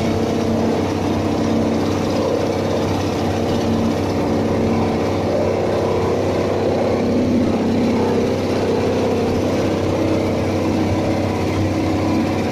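Compost and grass chopper running steadily, its engine driving the chopping rotor at a constant speed.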